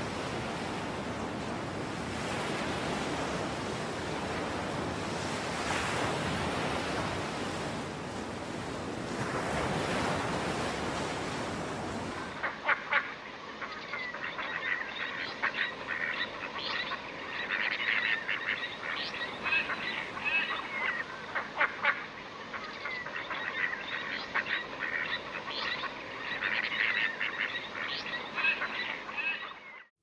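Wind and water noise for about the first twelve seconds. Then, after a sudden cut, ducklings peep in quick, high, repeated calls, with some duck calls mixed in.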